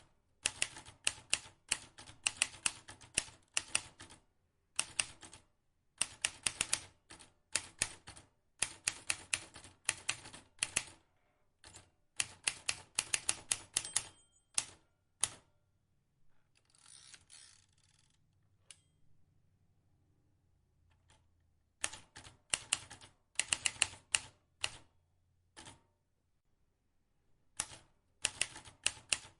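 Vintage manual typewriter being typed on: rapid runs of sharp key strikes in bursts with short pauses between them. Near the middle the keys stop for several seconds, with only a soft rasping sound, before typing resumes.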